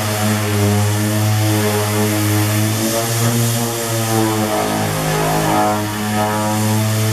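Power sander running steadily against a wood wainscoting board, sanding off the old varnish. Its motor hum wavers slightly in pitch as it is worked under load.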